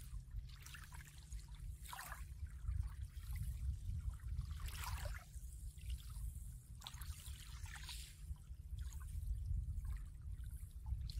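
Small waves lapping and washing up onto a sandy shore, swelling and fading several times over a steady low rumble.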